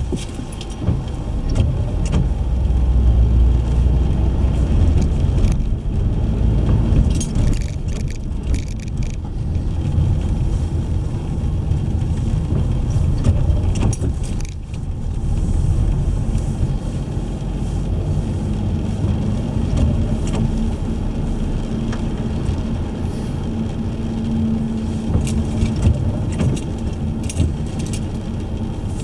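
Car driving, heard from inside the cabin: a steady low rumble of engine and road noise, with a faint engine tone rising out of it now and then in the second half and a few light rattles or clicks.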